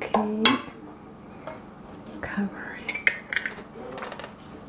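Metal kitchen utensils clinking and tapping on kitchenware, a cluster of sharp clinks about two to three and a half seconds in. A short vocal sound comes at the very start and is the loudest thing.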